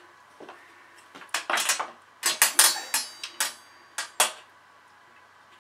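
Aluminium flat bar and a wooden block being shifted into place on the aluminium frames of face-down solar panels: a quick run of sharp metallic clinks and knocks, some ringing briefly, from about a second in to past four seconds.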